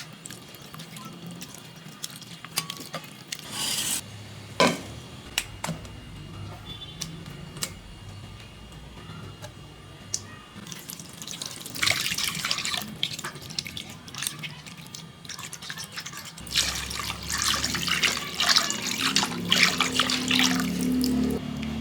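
Liquid pouring and splashing in two longer stretches, about halfway through and again near the end, with scattered sharp clicks and taps in between.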